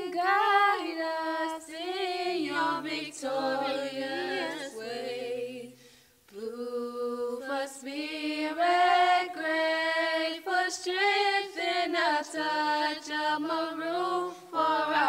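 A song with a sung vocal line over low bass notes, pausing briefly about six seconds in before the singing resumes.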